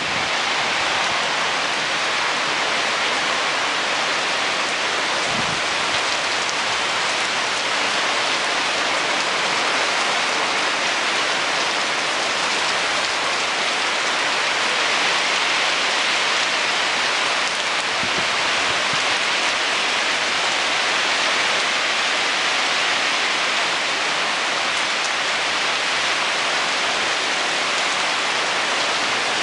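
Rain pouring down steadily in a thunderstorm downpour, an even hiss of rain striking the ground.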